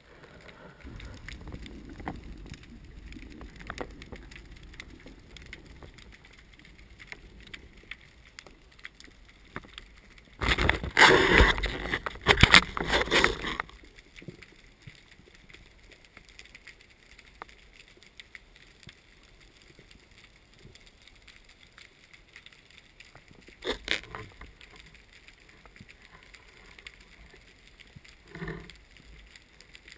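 Underwater ambience picked up by a speargun-mounted camera in its housing: a low rumbling water noise, with a loud rough rush of noise lasting about three seconds a little before the middle and two shorter knocks later on.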